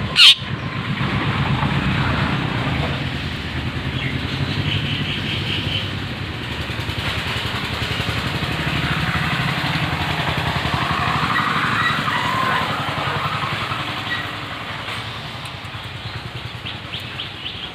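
A sharp click just after the start, then a motor vehicle engine running steadily with a low pulsing hum. Short runs of rapid high bird chirps come in a few seconds in and again near the end.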